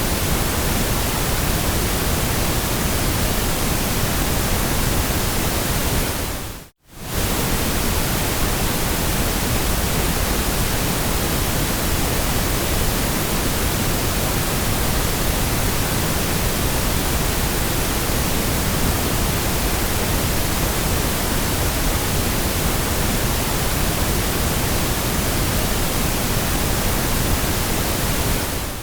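Steady artificial white noise, a flat even hiss across the whole pitch range. It dips briefly to silence and fades back in about seven seconds in.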